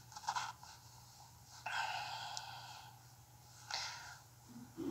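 A few soft, breathy puffs of breath, each short and fading, over a faint steady hum.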